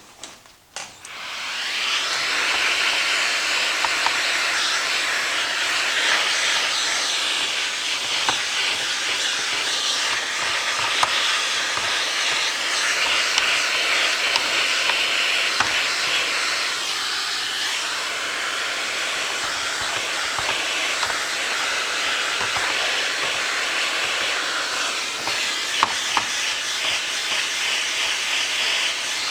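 A vacuum cleaner starts about a second in and runs steadily, a loud even hiss as it sucks dirt out of the robot vacuum's chassis, with scattered light clicks.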